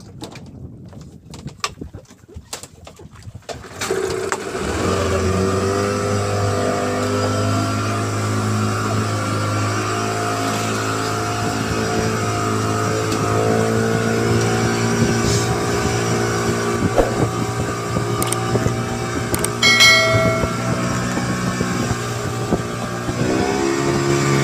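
Fishing boat's engine running steadily after coming in about four seconds in, with a few knocks on the deck before it; near the end it picks up speed and its pitch rises.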